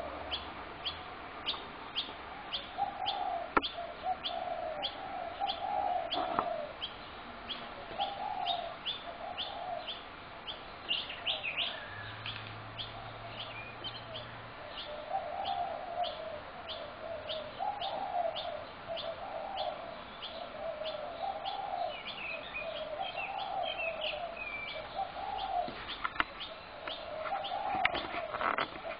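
Spotted doves cooing, short low phrases repeated over and over, over a steady run of high chirps at about two or three a second.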